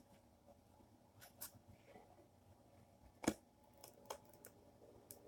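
Faint scattered clicks and taps of hands working at a cardboard toy box and its packaging, with one louder knock about three seconds in.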